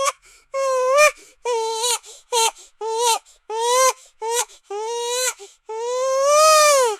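Toddler crying in a series of short sobbing cries, building to one long wail that rises and falls near the end.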